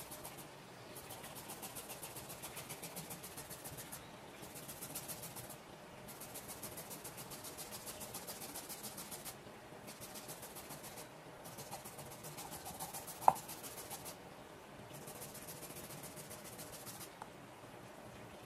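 Fine handheld rasp grater scraping food in quick, even strokes, in runs of one to three seconds with short pauses between. A single sharp knock comes about thirteen seconds in.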